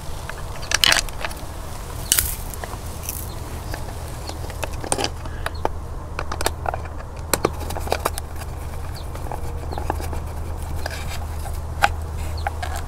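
Scattered light clicks and small scrapes of hands handling the plastic cover of a pool valve actuator, over a steady low hum.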